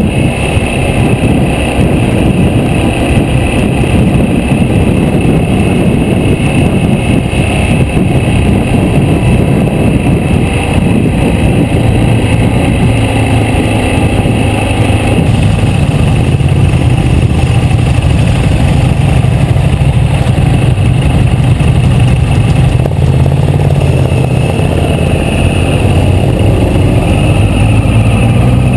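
Motorcycle engine running while riding along, with heavy wind rush on the bike-mounted camera's microphone. The engine note becomes a clearer steady hum about halfway through and rises near the end as the bike accelerates.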